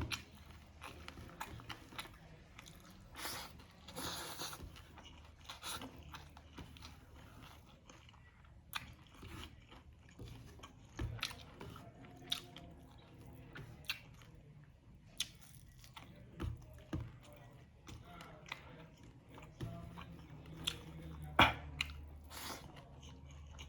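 Close-up eating sounds of a meal of fried whole fish and boiled leafy greens: chewing and biting with irregular crunches and mouth clicks, the loudest crunch near the end.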